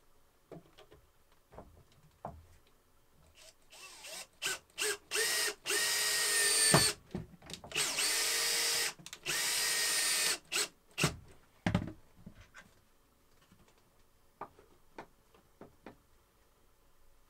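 Power drill driving screws: a series of trigger runs, several short and two of about a second each, with small knocks between as the screws are set.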